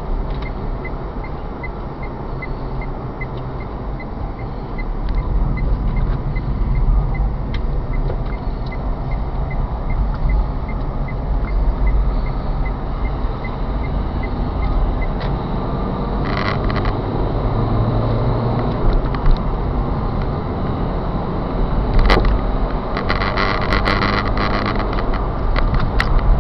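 Car driving, heard from inside the cabin: steady engine and tyre rumble that grows louder a few seconds in. A fast, light ticking runs through the first half, and there are a few short rattles and clatters near the end.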